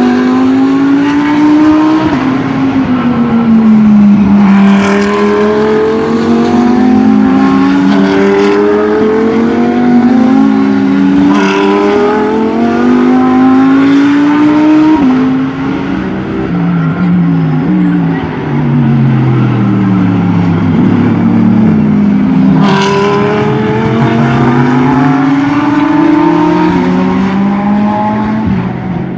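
GT3 race car engines at full throttle, the pitch climbing and then dropping sharply with each upshift, again and again. About halfway through, the pitch falls in steps through downshifts under braking, then climbs again. A few sharp cracks come at some of the shifts.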